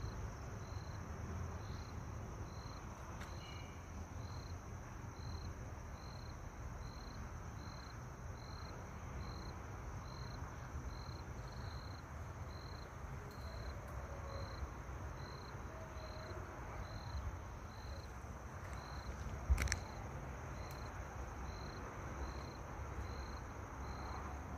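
Crickets chirping: a high, even chirp repeating about three times every two seconds over a steady high trill. A single sharp knock about three-quarters of the way through.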